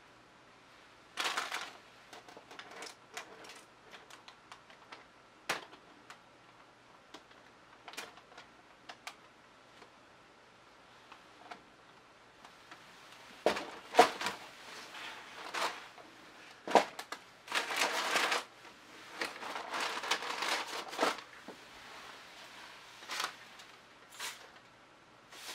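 Handling noise from gloved hands tilting a wet poured canvas and setting it down on cups over plastic sheeting: scattered sharp clicks and light knocks, busier in the middle with short rustles and knocks.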